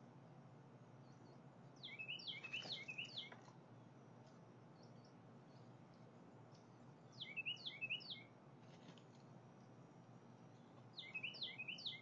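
Songbird calling in three short bursts, each a quick run of high, down-slurred chirps, about two, seven and eleven seconds in.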